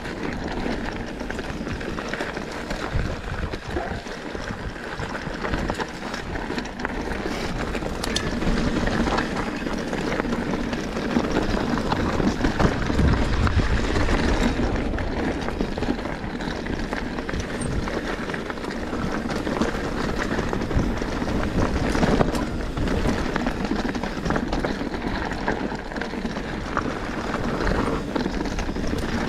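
Mountain bike riding fast down a rough dirt trail: tyres rumbling over dirt and rocks, with frequent knocks and rattles from the bike.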